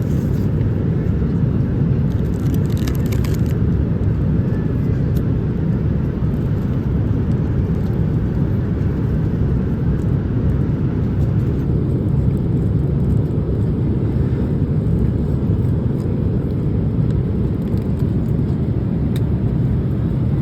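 Steady low rumble of an airliner cabin in flight, the constant engine and airflow noise heard inside the plane.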